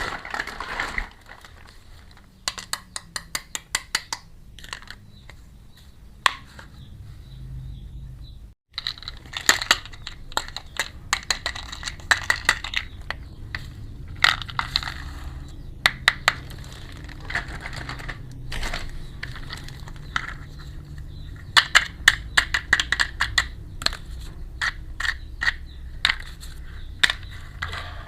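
Small plastic miniature kitchen toys and their packaging being handled during unboxing: runs of quick clicks and taps over rustling, with a brief cut to silence about eight seconds in.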